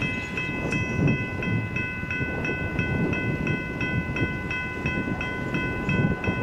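Railroad warning bell ringing rapidly, about three strikes a second, as a SunRail commuter train approaches, over a low rumbling noise.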